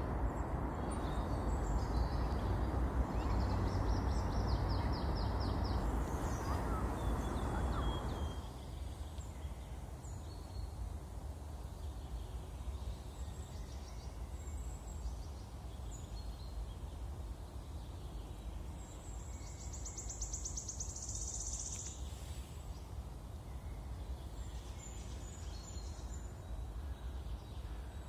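Steady ambient background noise, heavier for the first eight seconds and then lower, with faint high chirps here and there and a brief high trill about twenty seconds in.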